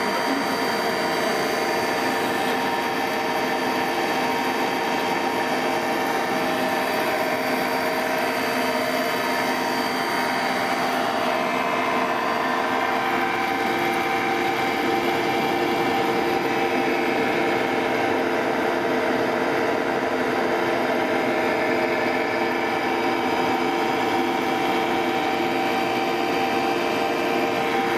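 Electric motor-generator set running steadily, a hum and whine of several steady tones over a mechanical rush, with no change in speed.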